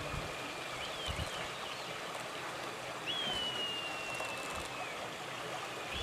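Red kites calling: a high, thin whistle that wavers briefly about a second in, then a long drawn-out whistle starting about halfway through and slowly falling in pitch, over a steady hiss.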